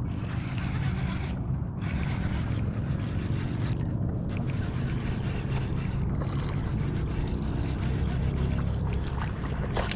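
Steady low rumbling noise of a small boat on open water, with no distinct events.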